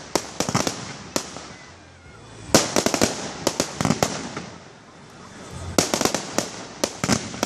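Aerial fireworks bursting in rapid volleys of sharp crackling pops. Three clusters come about every three seconds, with a hiss in between.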